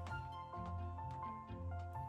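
Background music: a light, bouncy tune of plucked or mallet-like notes over a bass line.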